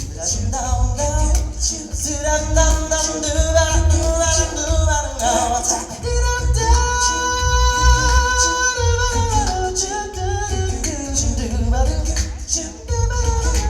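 A song with a voice singing over accompaniment and a low bass pulse; about halfway through the voice holds one long note.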